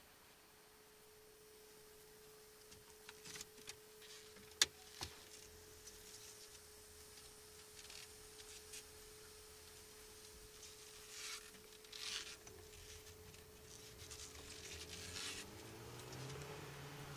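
Faint, muffled car-cabin sound: a steady thin tone with a couple of sharp clicks and a few short rustles. Near the end a low engine drone comes in, rising as the car moves off.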